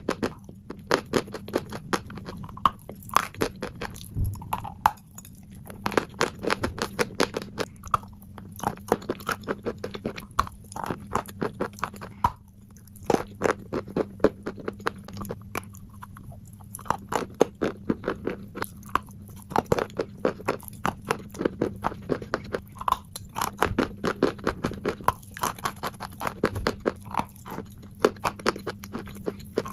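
Chalk being bitten and chewed, a steady run of sharp, crisp crunches in quick clusters with brief pauses between bites.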